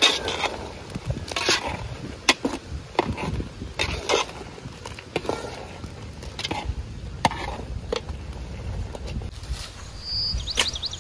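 Metal ladle stirring chicken gravy in a large aluminium pot, scraping and clinking against the pot in irregular strokes over the gravy's boiling bubbles.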